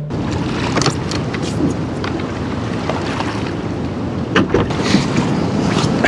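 High, fast-flowing river water rushing and splashing against a small boat, with wind on the microphone. A few sharp knocks on the boat come about a second in and again around four to five seconds in.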